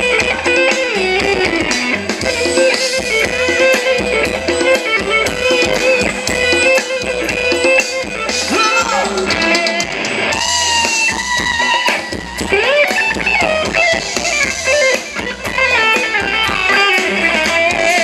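Live Thai ramwong dance-band music: a melody on electric guitar over a steady drum beat.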